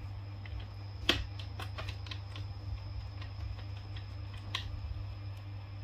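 A baby macaque handling a small cardboard box on a plastic toy: a scatter of sharp clicks and light taps, the loudest about a second in and another about four and a half seconds in, over a steady low hum.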